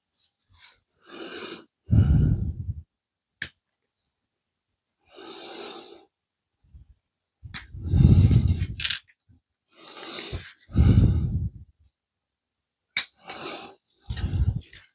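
A few sharp clicks from working the plastic kit parts, typical of sprue cutters snipping the seat off the sprue. These alternate with four short, breathy bursts close to the microphone.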